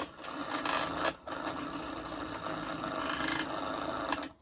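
A small electric motor on the repair bench running steadily with a buzzing hum. It cuts out for a moment about a second in, then runs on until it stops at the end.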